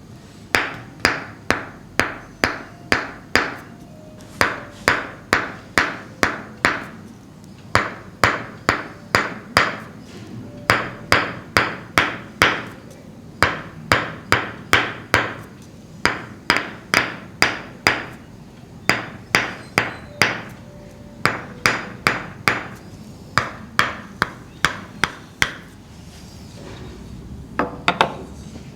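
Tok-sen massage tapping: a wooden mallet striking a wooden wedge held against the back, in quick runs of four or five knocks at about three a second, with short pauses between runs. The tapping stops a few seconds before the end, followed by a few fainter knocks.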